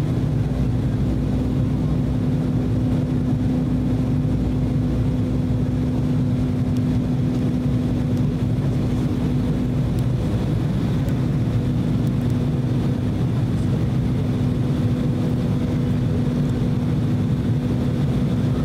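Steady cabin drone inside an Embraer E190 airliner on approach: its General Electric CF34 turbofan engines and airflow, with a steady low hum tone and a fainter higher one over a deep rumble.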